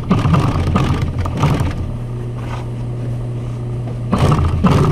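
Industrial sewing machine stitching through canvas with a rapid clatter. It pauses for about two seconds midway while a steady hum continues, then stitches again near the end. This is a test stitch after a needle bar adjustment.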